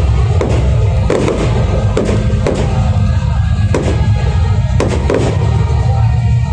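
Aerial fireworks shells bursting, about seven bangs spaced roughly a second apart, over loud music.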